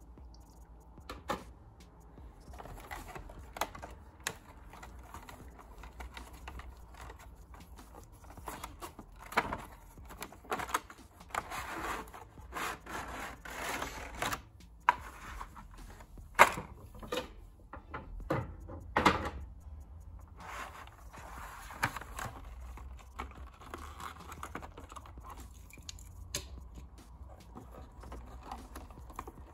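Cardboard box and clear plastic blister tray being handled and opened: scattered clicks, crinkles and taps of stiff plastic and card, with a longer rustle partway through and a few sharp, louder plastic clicks after it.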